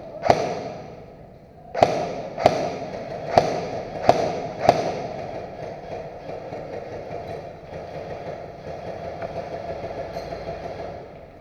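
Airsoft gunfire: six sharp single shots over the first five seconds, each with a short echo. A fainter, fluttering rattle follows from about seven seconds in.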